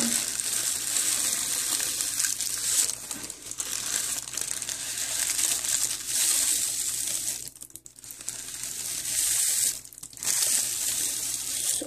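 White tissue paper crinkling and rustling as hands press and smooth it flat. It makes a continuous soft, hissy rustle, with two brief pauses in the second half.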